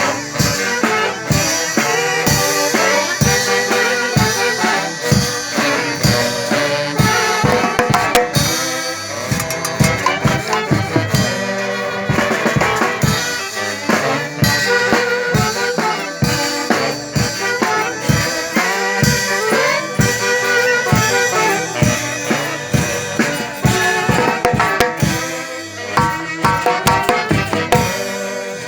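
Band music with a drum kit keeping a steady beat under a horn melody.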